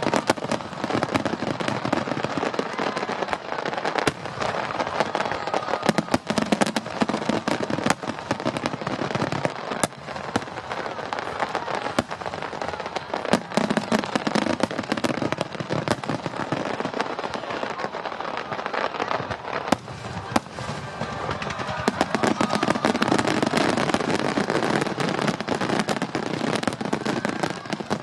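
Aerial fireworks bursting in a rapid, continuous string of bangs, with the bangs coming thicker and louder over the last few seconds.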